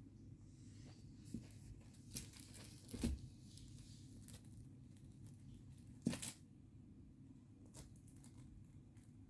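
Cats at play making scattered rustles and sharp taps. The loudest taps come about two, three and six seconds in, over a low steady hum.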